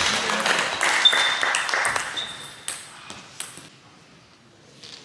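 Table tennis ball clicking sharply off the bats and the table in a rally, with short high shoe squeaks on the sports-hall floor in the first couple of seconds, then a few single ball clicks spaced well apart.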